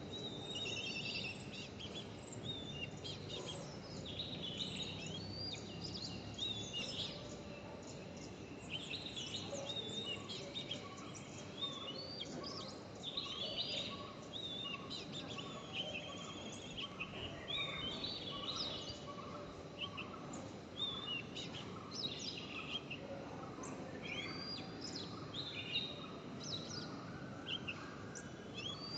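Several birds chirping and singing in a mixed chorus over a soft background hiss. Through the middle stretch one lower note is repeated at an even pace, a little faster than once a second.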